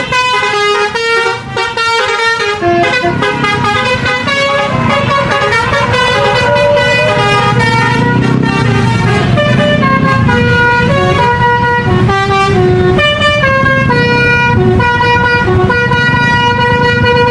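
Basuri telolet musical bus horns from two buses playing tunes as a duet, the notes stepping quickly at first and then held longer. A low rumble runs beneath them from about seven seconds in.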